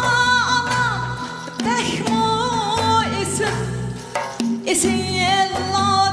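A woman singing a Uyghur song into a microphone, amplified through PA speakers, over backing music with a bass line and a drum beat. She holds long notes that bend and waver in pitch.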